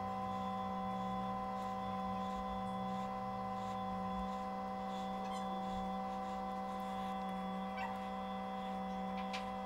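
A steady background hum made of several held tones that do not change, with a few faint light ticks near the middle and end.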